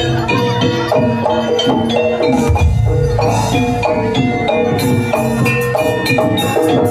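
Live jaranan dance music: quick runs of struck metallophone notes over drums and percussion.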